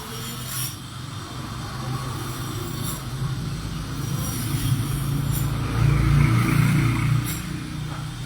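A heavy engine running steadily, growing louder for about a second around six seconds in, with a few light clicks on top.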